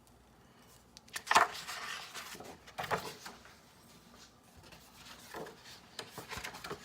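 A few soft handling noises, short rustles and knocks, the loudest about a second in and another a couple of seconds later, with fainter ones near the end.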